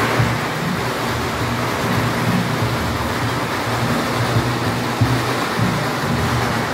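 Loud temple-procession music, a dense, noisy wash with a low pulsing beat, coming in suddenly at the start.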